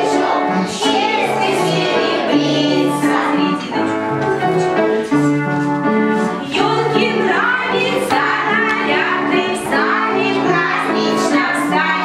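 A group of young children singing a song together over musical accompaniment, with an adult woman's voice singing along.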